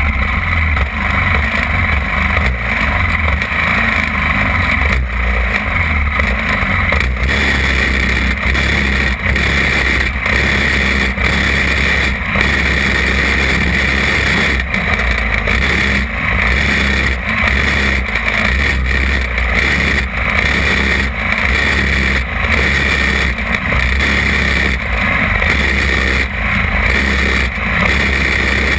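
Champ buggy's small kart engine running loud and steady at high revs, heard from a camera mounted on the kart as it drives laps.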